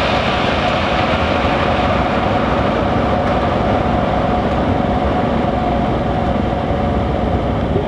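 Drag racing car engine running loud and steady, a dense mechanical rumble that holds the same pitch throughout.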